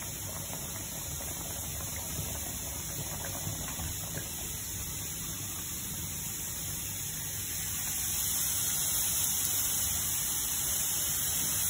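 Seafood and corn stew simmering and bubbling in a wok; from about eight seconds in, skewered chicken sizzling in oil in a frying pan, a little louder.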